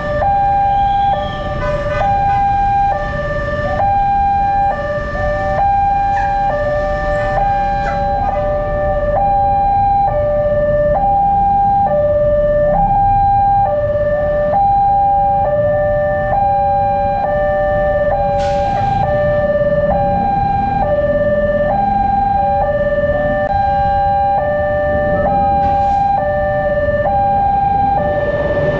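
Railway level-crossing warning siren sounding two alternating tones, switching back and forth evenly, each tone held for well under a second, over a low rumble of road traffic.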